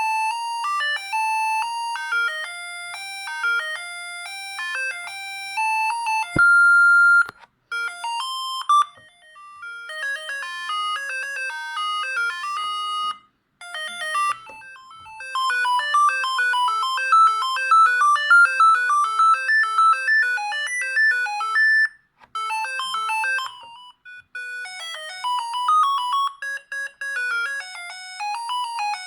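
Siemens S45 mobile phone playing its built-in ringtones: beeping electronic melodies, several different tunes in turn, separated by short breaks.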